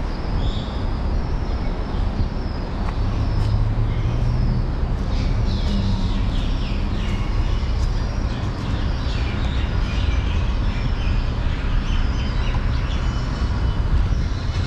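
Steady low rumble of city traffic, with birds chirping in quick repeated notes that are busiest through the middle.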